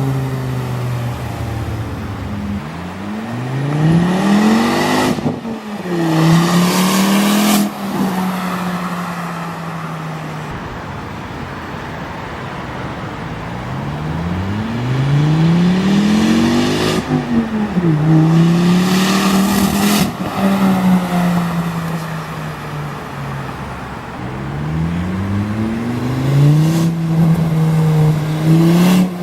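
Volvo S40 T5's turbocharged 2.5 L inline-five, with a large exhaust leak at the flex pipe, accelerating hard three times. Each time the revs climb, dip briefly at an upshift and climb again, with a loud noisy roar near the top, then settle back to steady running.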